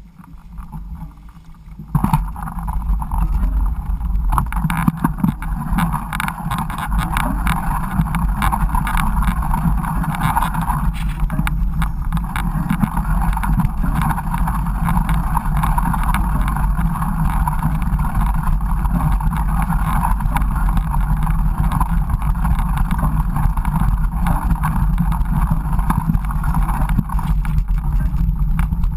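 Steady rushing noise with many small knocks and rattles, starting about two seconds in. This is the sound of a mountain bike being ridden over a rough trail, with wind on the action camera's microphone.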